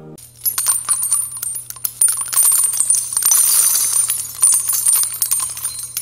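Jingling sound effect: a dense run of bright metallic clicks and rings, growing louder about two seconds in, over a low steady hum.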